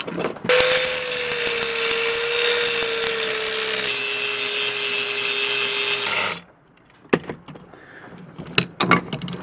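Angle grinder running against a steel bar, grinding its side flat and throwing sparks. The grinder's steady whine drops slightly in pitch partway through and cuts off about six seconds in. A few sharp clanks of metal tools being handled follow.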